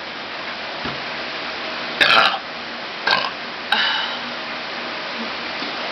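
A girl's burp with a corn dog in her mouth, loudest about two seconds in, followed by two shorter sounds about a second and a second and a half later.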